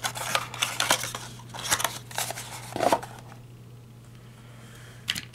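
Cardboard toy packaging handled and turned over in the hands: a run of scrapes, rustles and taps for the first three seconds or so, then quiet apart from one more tap near the end, over a faint steady low hum.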